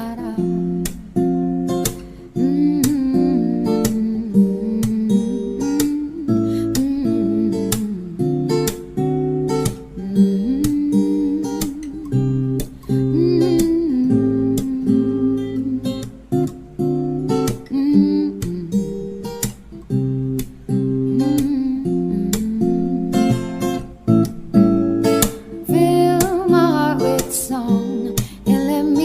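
Acoustic guitar music, strummed and plucked, playing a melody without words.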